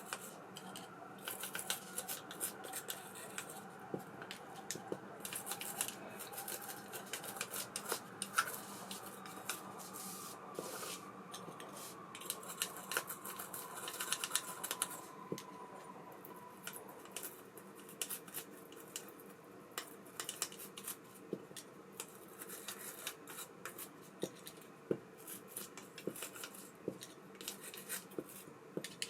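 Small metal parts of an ABU Ambassadeur 5500C Direct baitcasting reel being handled and worked with tools on a bench: many light clicks, ticks and scraping. A faint thin whine slowly falls in pitch over the first half.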